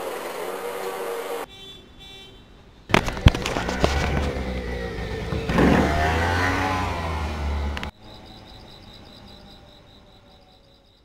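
Motorcycle engine noise in short cut-together clips: an engine running for about a second and a half, then after a sharp knock a louder stretch from about three seconds in with a deep rumble and a pitch that rises and falls, cut off near eight seconds. A faint noise fades out after it.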